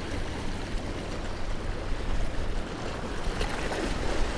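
Sea water washing steadily against the rocks, under a low rumble of wind on the microphone.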